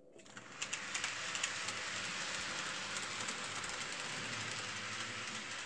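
Model trains running on a layout's track: a steady rushing rattle of small wheels and motors, with a few sharp clicks in the first second and a half.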